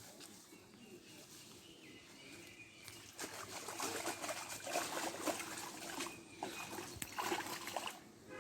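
Irregular splashing and trickling of water, louder from about three seconds in.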